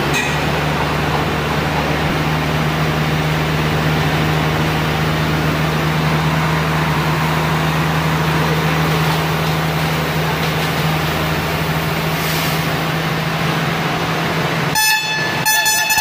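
Diesel engines of an asphalt paver and a tipper truck running steadily at a constant pitch while the truck tips asphalt mix into the paver's hopper. Near the end a vehicle horn honks, the signal that the hopper is full and the load is done.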